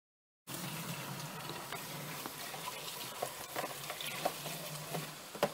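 Water from a garden hose running into a plastic poultry waterer, a steady rush of filling that starts abruptly about half a second in, with a few light knocks.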